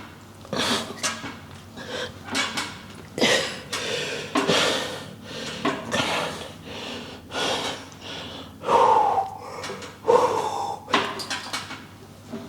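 A man breathing hard during leg press training: loud, forceful breaths about every second, with two short groans late in the stretch.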